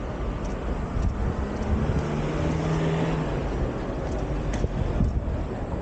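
Road traffic passing, with one vehicle's engine droning steadily for a second or so in the middle.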